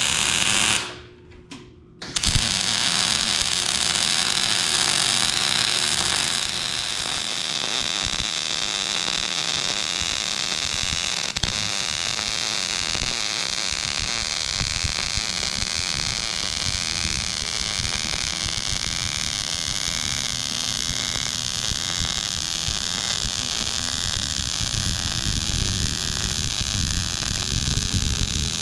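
MIG welder laying a long continuous bead with .030 wire on a low setting, the first pass that bridges a gap between the spring perch and the axle housing: a steady crackling hiss of the arc. A brief burst of arc comes right at the start, then a pause of about a second, then the arc strikes again about two seconds in and runs unbroken until it cuts off at the very end.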